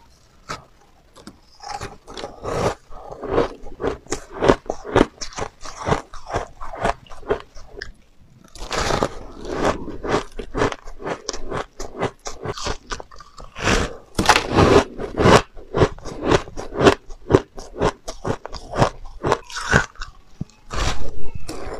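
Soft shaved ice, coloured purple, being bitten and chewed close to a clip-on microphone: a rapid, irregular run of crunches. There is a brief lull about eight seconds in and a dense stretch of crunching around fourteen to fifteen seconds.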